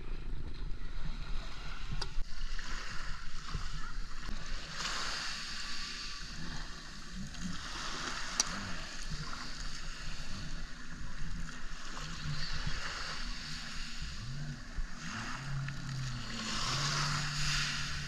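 A jet ski's engine running as it pulls away across the water, its note rising and then holding steady near the end, over small waves washing on the beach.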